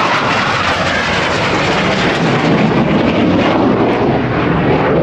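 Loud jet noise from a Blue Angels F/A-18 Hornet's twin jet engines as it flies low past with its landing gear down. The pitch of the roar falls as it goes by.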